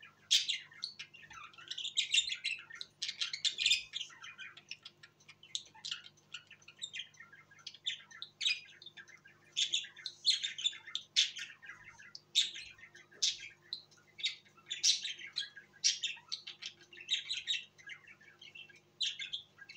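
Caged budgerigars chirping and chattering: a steady stream of short, high chirps with hardly a pause.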